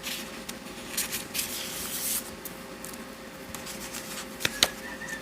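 Pages of a paper coloring book being turned and handled: rustling and sliding paper, with a couple of sharp taps near the end.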